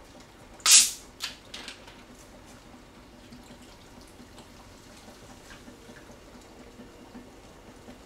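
A plastic bottle of lemon-lime soda is uncapped: a sharp hiss of escaping carbonation about a second in, then a few shorter hisses as the cap comes free. The soda is then poured into a bowl of fruit, ice and milk with a faint, steady splashing.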